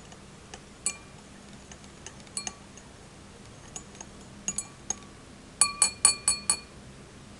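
Spoon stirring sugar water in a drinking glass, clinking against the glass: scattered light clinks, then a quick run of five ringing clinks near the end, as the sugar is stirred to dissolve.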